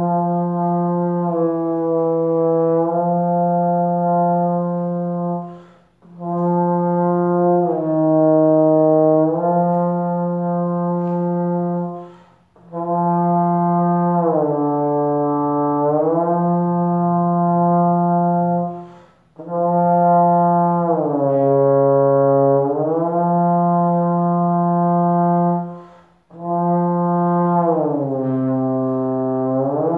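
Tenor trombone with F attachment playing a warm-up study: five long, smoothly connected phrases, each a held note that bends down to a lower note and back up, the dip going lower in the later phrases, with short breaths between them.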